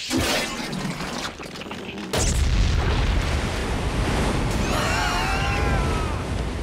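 Cartoon eruption sound effects: a sudden burst, then from about two seconds in a loud low rumble as green slime gushes up and out. Wavering high-pitched squeals come over the rumble near the end.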